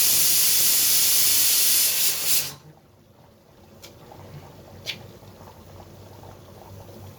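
Loud steady hiss of steam escaping from a cooking pot on the stove. It cuts off abruptly about two and a half seconds in, leaving quiet with a couple of faint clicks.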